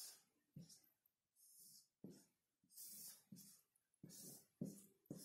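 Marker pen drawing on a whiteboard: a series of about eight short, faint scratchy strokes as lines and arrowheads are drawn.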